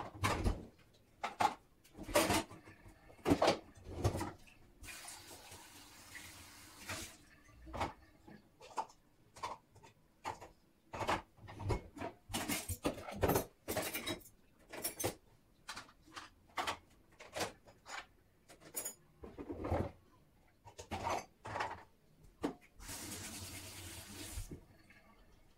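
Crockery clinking and clattering as dishes are handled at an open dishwasher, in many short knocks. A kitchen tap runs twice for about two seconds each, about five seconds in and again near the end.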